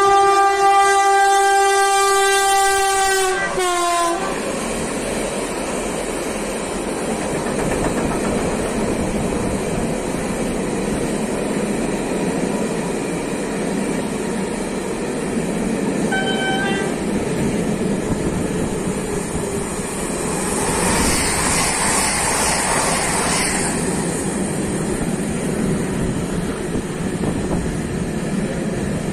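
A train sounds its horn, one steady note held for about four seconds that sags in pitch as it stops. The train then rolls past with steady wheel-on-rail noise.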